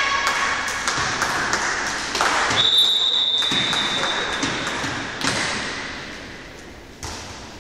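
Volleyball being played in an echoing sports hall: sharp ball hits and thuds on hands and floor. About two and a half seconds in, a referee's whistle blows once, a single steady high note lasting about a second and a half. After it the sounds thin out and grow quieter.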